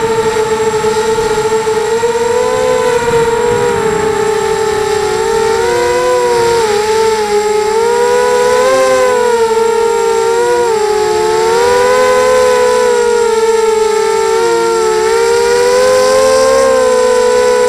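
A 250-size mini quadcopter's brushless motors and propellers whine steadily in flight, heard from on board. The pitch rises and falls as the throttle changes, and several close tones waver against each other as the motors run at slightly different speeds.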